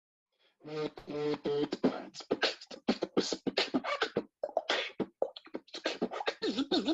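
Human beatboxing: a fast run of vocal drum hits and mouth clicks over hummed bass notes, with sliding sung pitches near the end.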